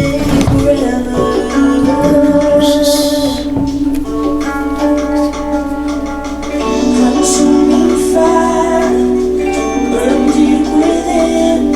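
Church worship music: long held chords with voices singing, and a tambourine shaking briefly about three seconds in and again around seven seconds.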